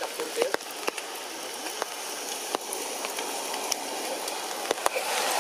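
Steady hiss of light rain, with scattered sharp drips and ticks.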